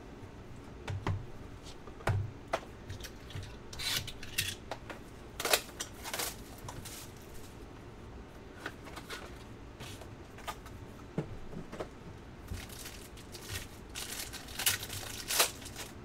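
Hands handling sealed trading-card boxes: scattered taps and scrapes of cardboard on the table, and crinkling and tearing of the boxes' plastic wrapping as one is opened.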